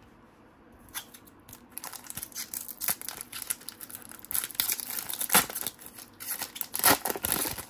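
Trading card packaging crinkling and tearing as cards are handled and unwrapped: irregular crackling that begins about a second in and goes on in quick, uneven bursts.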